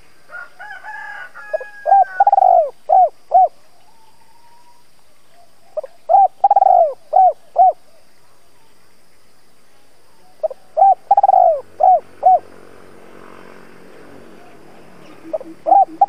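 Spotted dove cooing its song in repeated phrases about four seconds apart, each a short note, a long falling coo and two short clipped notes. A fast run of low repeated notes comes near the end.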